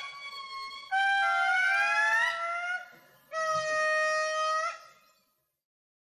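Lemurs wailing: a fainter call, then two long, loud wails. The first wail has two voices overlapping and sliding in pitch; the second is held at a steady pitch.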